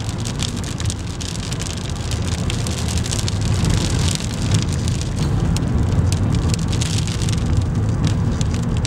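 Heavy rain pelting a moving car's windscreen and roof, many sharp ticks of drops striking the glass, over the steady low rumble of the car driving in the storm. The ticks thin out near the end.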